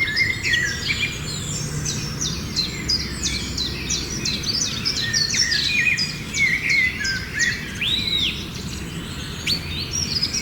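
Many small birds chirping and twittering at once, quick overlapping calls and whistles throughout, over a steady low background noise.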